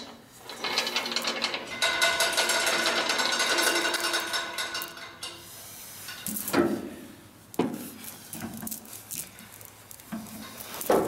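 A steady machine whine for about five seconds, then a run of metal clunks and knocks as the engine and transmission are worked free of the Hyster forklift's frame.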